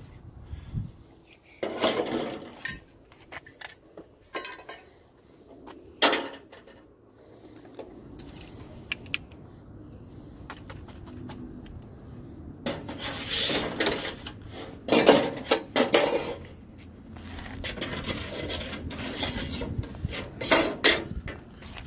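Irregular metallic clanks and rattles of aluminium gutter stock and hand tools being handled. The clattering comes in bursts, densest about two-thirds of the way through and again near the end.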